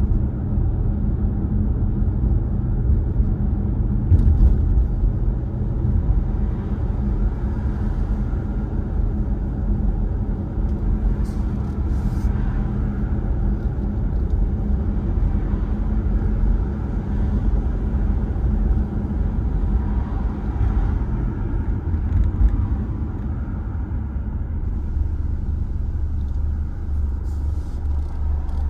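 Car driving along a road: a steady low rumble of engine and tyre noise, with a few faint clicks.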